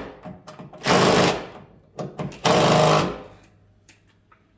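A power tool running in two short bursts of about half a second each, with a rapid mechanical buzz, then a few light clicks.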